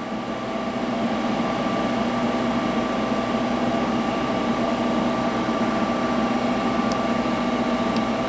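Steady electric hum with a few fixed tones from a hydraulic CNC press brake's pump unit running at idle, a little louder after the first second. A few faint clicks near the end.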